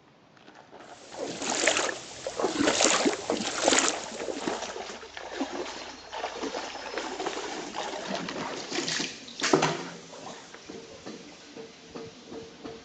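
Shallow stream water splashing and sloshing in a run of uneven splashes, loudest in the first few seconds and again about nine and a half seconds in.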